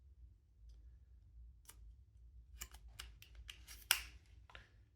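Faint paper rustling and light clicks as a stack of about 24 sheets is squared up and fitted into a small Midori XS stapler, with a sharper click about four seconds in.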